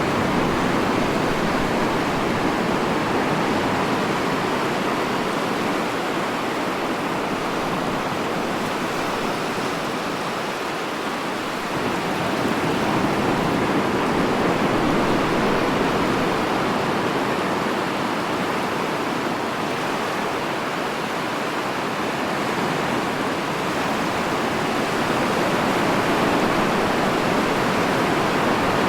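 Sea surf washing on a shore: a steady rushing of water that swells and eases slowly.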